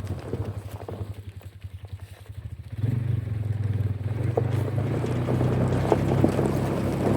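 A vehicle engine running at low speed, a steady low hum with fast even pulses. It dies down for a couple of seconds, then picks back up about three seconds in.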